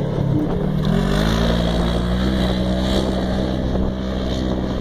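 Side-by-side UTV buggy's engine accelerating past on a dirt rally track, its pitch rising about a second in and then holding steady at high revs as it pulls away.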